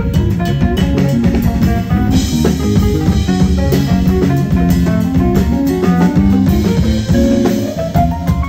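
Live band music with a steady drum beat in a Latin salsa-style groove, the keyboard part played on a Nord Stage 2 EX stage keyboard.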